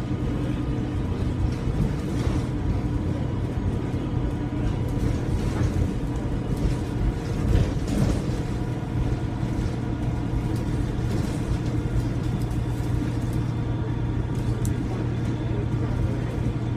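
Alexander Dennis Enviro300 bus engine running steadily under a low drone, with a constant high turbo whistle, loud for this model. A brief knock comes about halfway through.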